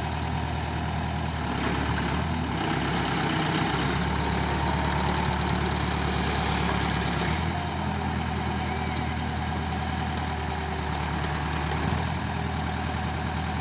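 Backhoe's diesel engine running steadily, louder and fuller from about two seconds in until about seven seconds as it works harder, then settling back to idle.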